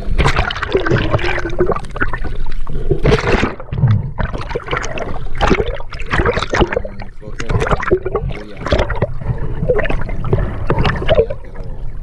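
Water sloshing and splashing around a camera that moves between the sea surface and underwater, in an irregular run of churning bursts.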